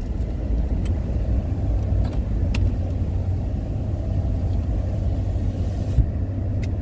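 Car on the move: a steady low rumble of engine and road noise, with a few faint ticks and a short knock about six seconds in.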